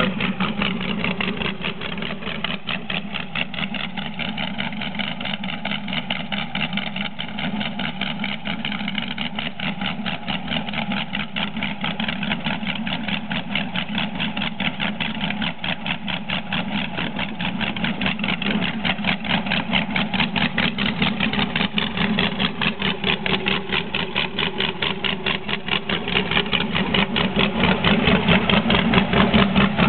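GM LS7 7.0-litre V8 crate engine idling on an engine run stand, a steady rapid beat of firing pulses. It gets somewhat louder near the end. The engine is a balanced and blueprinted build with forged pistons and a performance cam.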